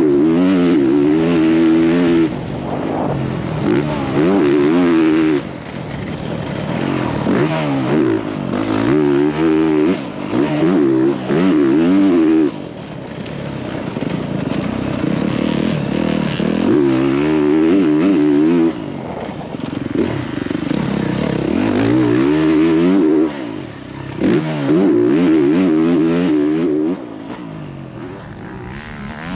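Motocross bike engine heard up close from the rider's helmet camera during a lap of a dirt track. It revs up hard in stretches of a few seconds and rolls off between them as the rider accelerates, shifts and backs off for turns and jumps, with some clatter from the bike.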